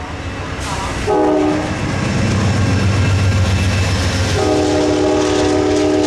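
Diesel locomotive sounding its multi-chime air horn: a short blast about a second in, then a long blast from about four and a half seconds. Underneath, the deep rumble of the train grows louder as it approaches.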